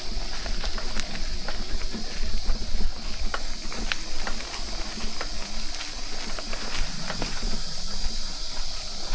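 Mountain bike ridden over a sandy, bumpy trail: a steady high hiss with scattered clicks and rattles from the bike as it goes over bumps, and a low rumble underneath.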